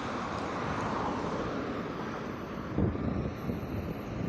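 Road vehicle passing: a steady rumble with road noise, easing off slightly, and a brief thump nearly three seconds in.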